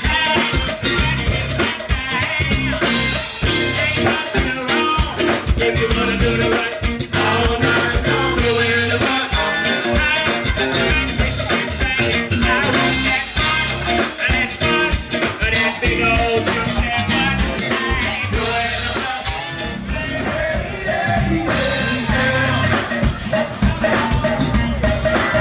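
Upbeat song with singing, guitar and drum kit over a steady beat.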